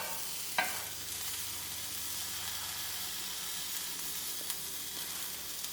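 Butter sizzling steadily in a pan under a grilled cheese sandwich frying over low heat, with one light knock about half a second in.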